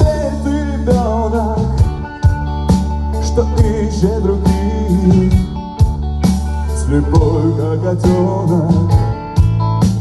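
Live rock band playing an instrumental passage: electric guitars, electric bass and a drum kit, with a wavering melody line over sustained low bass notes and regular drum and cymbal hits.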